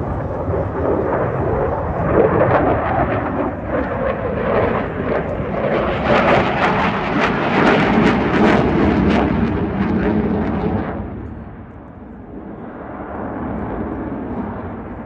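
Fighter jet engine noise from a display flight: a loud rumble that builds into harsh crackling as the jet passes, then falls away sharply about eleven seconds in to a fainter rumble.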